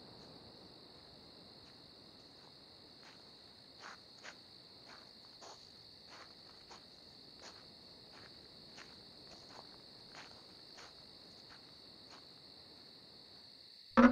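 Night ambience of steady cricket chirring, with a person's footsteps walking past at about two steps a second, clearest in the middle. A sudden loud sound starts right at the end.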